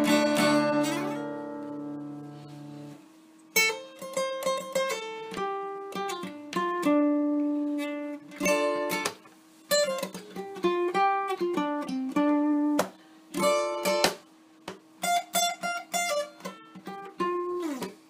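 Luna Celtic Horse acoustic guitar played solo. A strummed chord rings out and fades over the first few seconds, then a picked melody follows in single notes and short phrases, with one note held ringing underneath.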